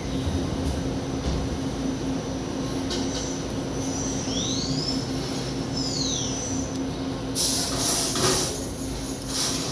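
Daewoo Puma CNC lathe running: a steady machine hum with a high whine that dips and rises again midway, then a loud hiss comes in about seven seconds in.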